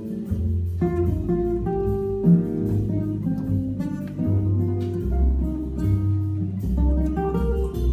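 Solo jazz guitar played fingerstyle on a nylon-string acoustic guitar: low bass notes held about a second each under plucked chords and melody notes.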